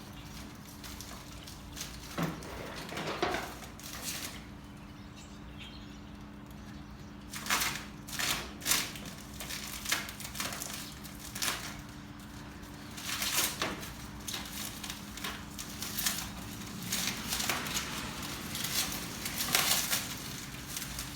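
Packaging being handled while a new Toro TimeMaster mower is unboxed: irregular rustles, scrapes and knocks, sparse at first and busier from about seven seconds in, over a steady low hum.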